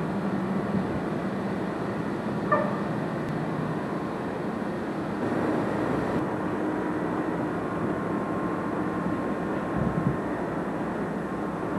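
Steady mechanical hum and rumble from a powered-up Peter Witt streetcar standing still, with one sharp click about two and a half seconds in.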